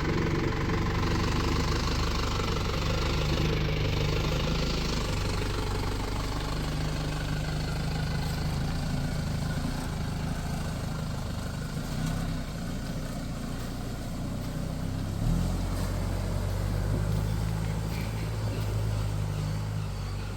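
2002 Holden Rodeo's 2.8-litre 4JB1T turbo-diesel engine running steadily, its note shifting about fifteen seconds in.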